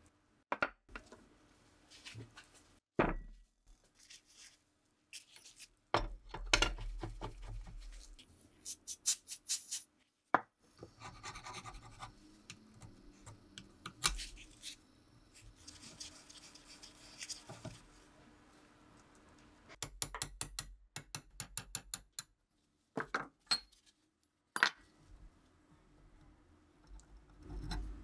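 Close-up clicks, taps and scraping of rusty steel rifle parts being handled and worked with a metal tool during disassembly. There are scattered sharp knocks and a couple of quick runs of ticks.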